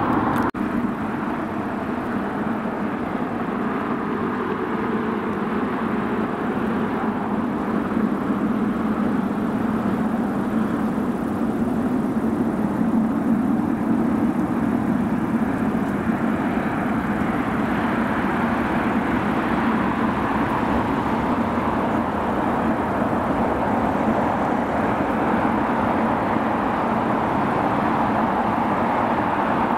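Steady engine and traffic noise: a constant roar with a low hum underneath, holding level throughout.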